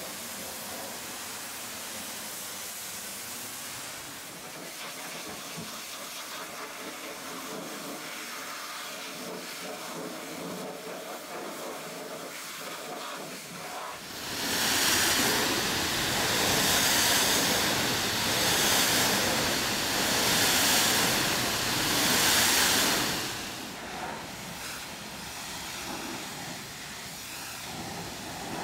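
High-pressure washer jet spraying water onto a truck trailer: a steady hiss, then from about halfway through a much louder, fuller rush for about nine seconds as the jet blasts the trailer's tyres and wheels close by, before dropping back to the lighter hiss.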